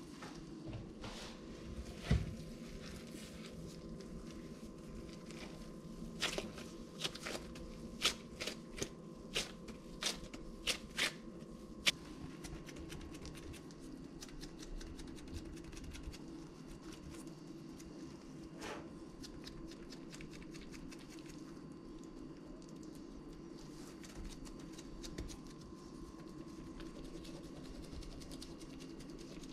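Gloved hands pressing and patting potato dough into a frying pan, with soft handling noises and a quick run of sharp taps and knocks about a quarter of the way in, over a steady low hum.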